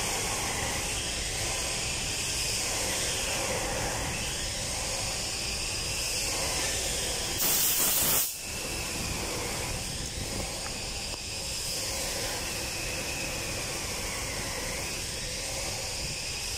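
Steady background hiss, with one brief, louder burst of hiss a little before halfway that stops abruptly.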